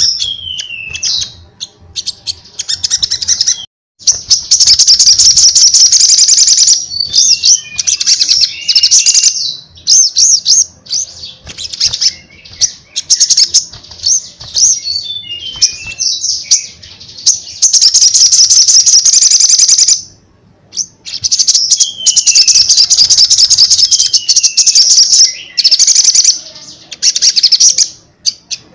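Caged sunbird (kolibri sogon) singing loudly and continuously: long runs of rapid, high, chattering chirps with occasional falling whistled notes, broken by a few short pauses.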